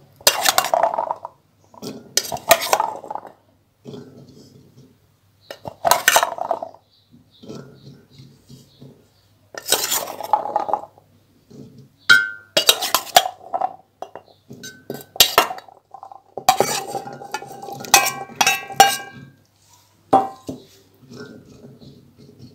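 A metal spoon scoops soaked chickpeas from an enamel bowl and tips them into an earthenware pot. The spoon clinks and scrapes against the bowl and the clay pot in about eight bursts a few seconds apart, and some strikes ring briefly.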